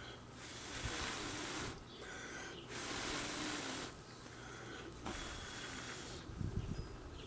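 A person blowing long, steady breaths into a smouldering tinder bundle to coax a flint-and-steel ember into flame: three breathy blows of about a second each, with short pauses to draw breath between.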